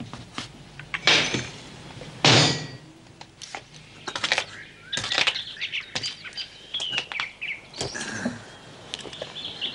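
Two loud thumps, about one and two seconds in, then small birds chirping, with scattered light clicks and knocks.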